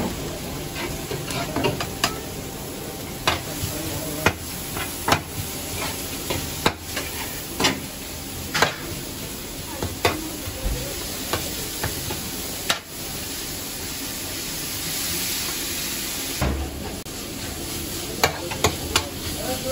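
Chopped meat sizzling on a wide, shallow round tantuni pan while a metal ladle scrapes and knocks against the pan as it is stirred, with sharp clinks every second or so and a quick run of them near the end.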